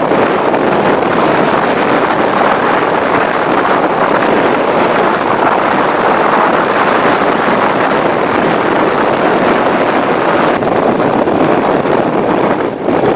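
Steady rush of wind and road noise through the open window of a moving vehicle, buffeting the microphone. The hiss eases slightly about ten seconds in.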